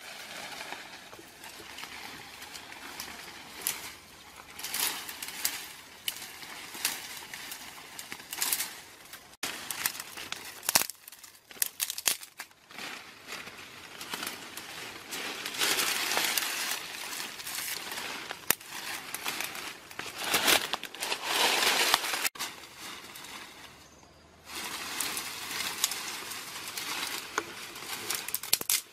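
Leaves, vines and dry twigs rustling and crackling as someone pushes through dense undergrowth and pulls at the plants by hand, loudest in the middle and broken by a few abrupt cuts.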